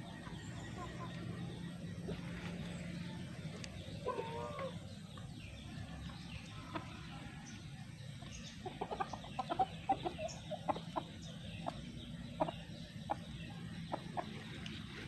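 A free-range flock of Rhode Island Red, native and Australorp chickens clucking: a drawn-out, bending call about four seconds in, then a quick run of short clucks from about nine seconds on.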